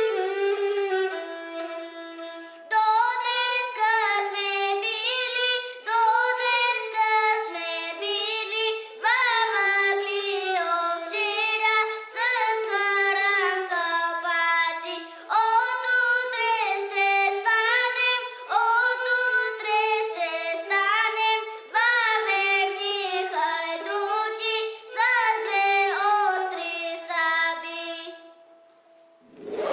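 A young boy's voice singing a Bulgarian folk song, accompanied by a gadulka (bowed Bulgarian folk fiddle). The gadulka plays alone at first and the voice comes in about three seconds in. The music stops shortly before the end.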